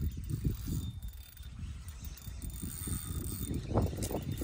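Fishing reel being cranked to wind in line, an uneven mechanical rattling with knocks from handling the rod.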